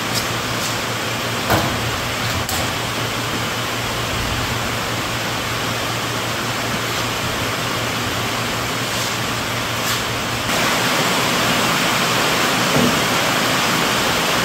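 Steady rushing noise with a low hum underneath, stepping up in loudness about ten seconds in, with a few light knocks.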